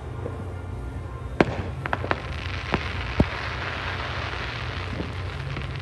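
Aerial fireworks: several sharp pops and bangs in the first few seconds, the loudest about a second and a half and three seconds in, then a dense crackling of burning stars lasting about three seconds.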